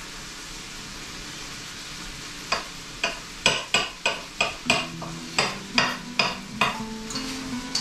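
Chef's knife chopping garlic on a cutting board: a run of about a dozen sharp knocks, two to three a second, starting a little over two seconds in, over a steady background hiss.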